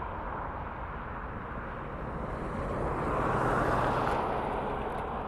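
Steady outdoor traffic rumble, swelling as a vehicle passes about three seconds in and then fading.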